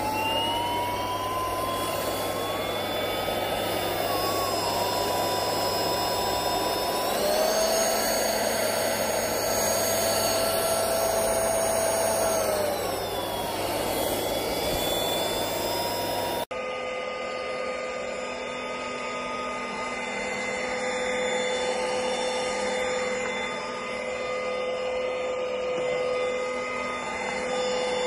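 Airbot Supersonics Aura cordless stick vacuum running, a steady motor whine over a rush of airflow. The whine climbs as the motor spins up at the start, steps up in pitch about a quarter of the way in and drops back about halfway. After an abrupt cut it runs on with a steadier whine.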